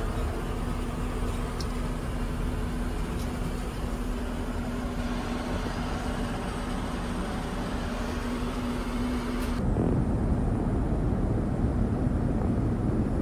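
Steady in-flight cabin noise of an Airbus A350-900 airliner, a broad rush of air and engine noise with a steady low hum. About ten seconds in it switches suddenly to a deeper, louder rumble.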